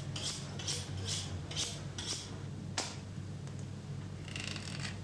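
Steel knife blade being stroked against a sharpening steel, even scraping strokes about two a second, then a sharp click about three seconds in and a short run of quick scrapes near the end, over a steady low hum.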